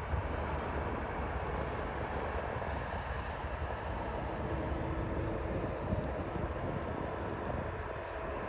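Boeing 787 Dreamliner's twin jet engines running at low taxi thrust as it lines up on the runway: a steady, even rushing hum.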